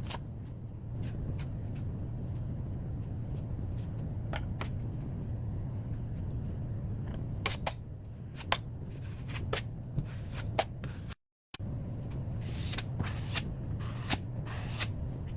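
Scattered short scrapes and clicks of hand tools working a drywall patch, over a steady low hum; the sound drops out for a moment about eleven seconds in.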